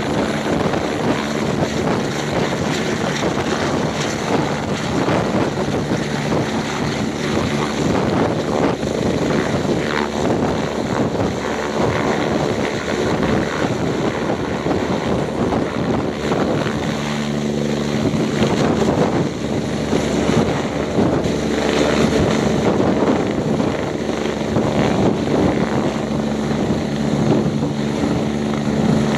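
UH-72 Lakota helicopter hovering low, its main rotor and twin turboshaft engines running steadily. A low hum in the sound grows stronger about halfway through as the helicopter turns.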